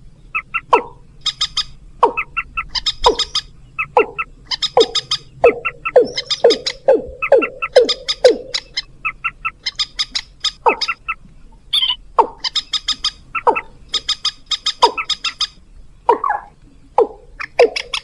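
Bird-lure recording of common moorhen and watercock calls: short clucking and croaking notes repeating about every half second, some in quick runs of sharp notes and many dropping in pitch.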